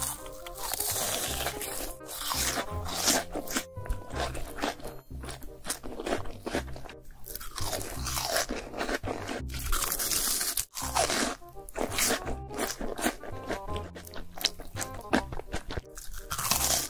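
Crisp crunching and chewing of bites into a breaded, deep-fried cheese pork cutlet, over background music.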